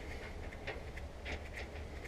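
Irregular light clicks and clinks of hand tools and metal parts being handled during work on a combine's concave, over a low steady hum.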